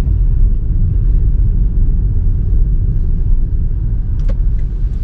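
A car being driven, heard from inside the cabin: a steady low rumble of road and engine noise.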